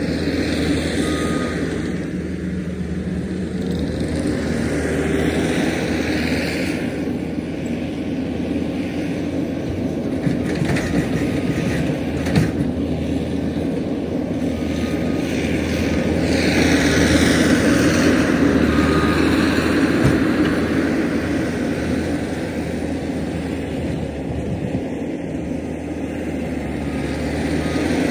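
Diesel engine of earthmoving machinery running steadily, its level swelling and easing twice as the machine works under load, with a few brief knocks midway.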